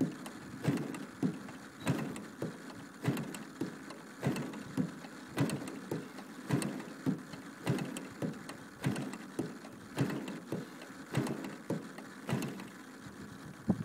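DLE 55 single-cylinder two-stroke gas engine being turned over again and again without catching, a short chuff and click about every 0.6 seconds. It is hard starting while warm.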